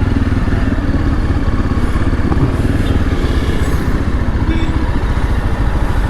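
Motorcycle engine running steadily while riding at cruising speed, heard from on the bike.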